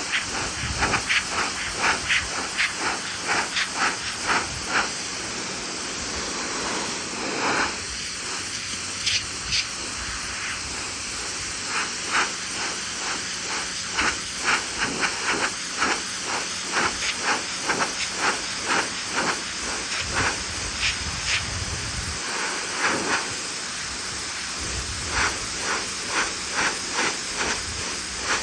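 Pressure washer spraying: a steady hiss of the water jet, broken by frequent short louder spatters as the spray strikes and moves across the surface.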